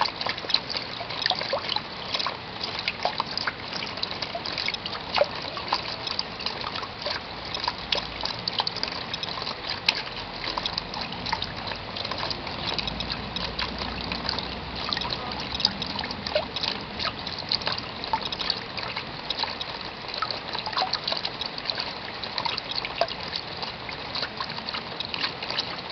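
Steady rain falling: a dense, even patter of many small drops.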